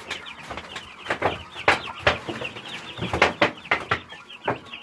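A group of young chickens peeping with many quick, repeated high calls, broken by several louder, short, sharp noises.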